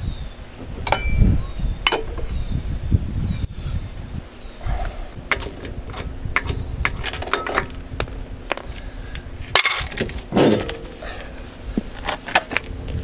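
Lug nuts being spun off a trailer wheel's studs by wrench and by gloved hand, with a run of light metallic clinks and clicks as they come free and are set down. About ten seconds in comes a louder scraping rumble as the wheel is pulled off the hub.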